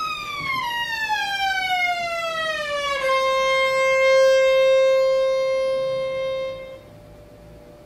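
A falling-pitch sound effect: one buzzy tone with many overtones slides steadily down for about three seconds. It then holds a single low note for nearly four seconds before cutting off near the end.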